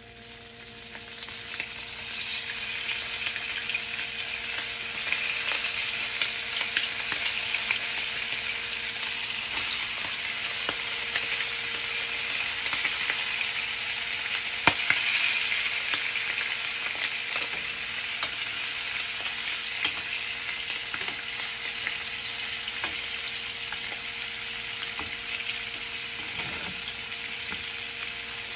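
Flour-dredged veal sweetbreads shallow-frying in plenty of hot oil in a nonstick frying pan: a steady sizzle with fine crackling, building over the first couple of seconds as the pieces go in.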